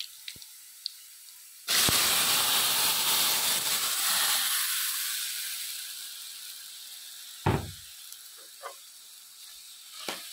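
Cooked pumpkin curry poured into hot coconut-oil tempering in an aluminium kadai: a sudden loud sizzle about two seconds in that slowly dies away. Later, a few knocks of the steel ladle against the pan.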